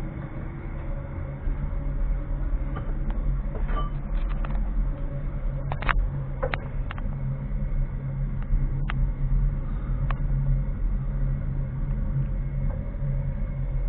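Steady low mechanical hum, like a running engine, with a few sharp clicks about six and nine seconds in.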